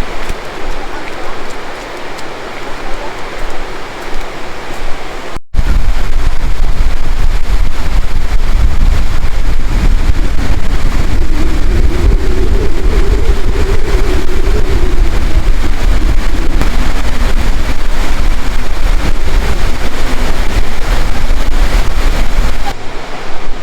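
Wind buffeting the microphone over the steady rush of a high waterfall. After a cut about five seconds in it becomes much louder, with a heavy low rumble that eases near the end.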